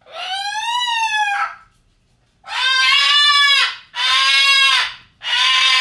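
A caged pet screaming: four loud, shrill calls, the first a longer one that rises and falls, then three shorter ones about a second each.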